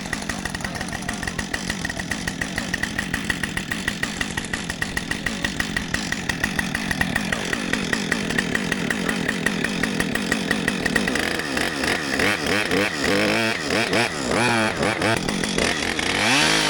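Gas two-stroke chainsaw running steadily, then revving up and down repeatedly from about eleven seconds in.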